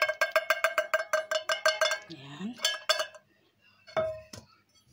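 Spoon tapping and scraping tuna out of a metal can, quick ringing metal clinks about six a second for two seconds, then a few more clinks and a knock near the end.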